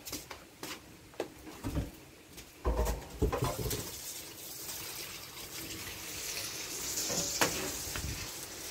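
Duck meat being rinsed in a stainless steel kitchen sink: a few knocks and thumps from handling the meat and sink, the heaviest about three seconds in, then water running steadily from the tap.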